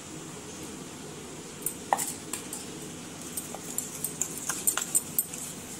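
A metal spoon clinking and scraping against a steel bowl while stirring milk into powdered sugar and biscuit cream. The irregular clinks start a couple of seconds in and come faster near the end.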